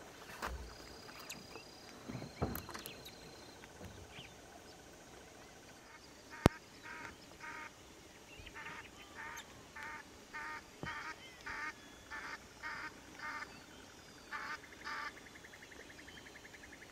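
A bird calling over and over: a run of short, evenly repeated calls, between two and three a second, starting about six and a half seconds in, with a brief pause and then a fast trill near the end. A single sharp click, the loudest sound, comes just before the calls begin.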